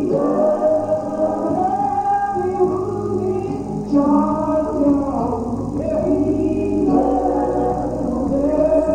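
Gospel song playing: a choir of voices singing held, sliding notes over an instrumental backing.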